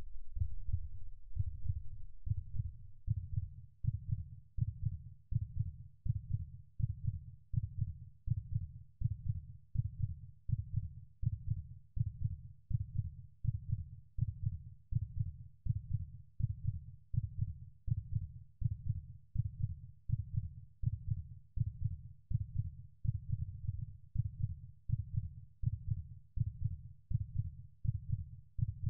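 Heartbeat sound effect: deep low thumps repeating steadily a little more than once a second, louder at first and settling over the first few seconds.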